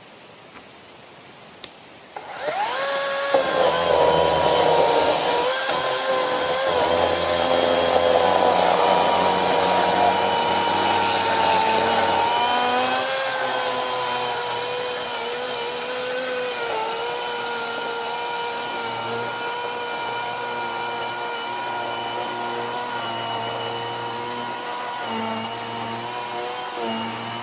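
Greenworks 20312 40-volt cordless electric chainsaw starting up suddenly about two seconds in and running with a steady high whine, its pitch dipping slightly now and then.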